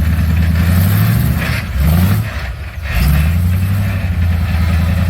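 Off-road rock buggy's engine running under load on a climb. It revs up about a second and a half in, drops off briefly just after two seconds, then pulls steadily again.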